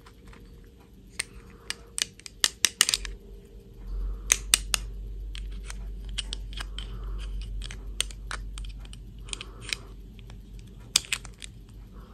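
Small hard-plastic doll and clip-on plastic dress pieces clicking and tapping together as they are handled and the doll is pressed into its dress. The clicks come in several quick clusters.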